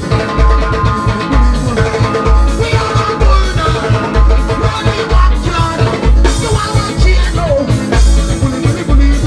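Loud band music with a steady beat: a deep bass note about every three-quarters of a second under sustained melody lines.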